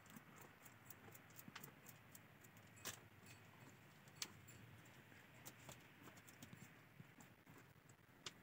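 Faint, irregular light clicks and ticks, a few a second, over a quiet hiss.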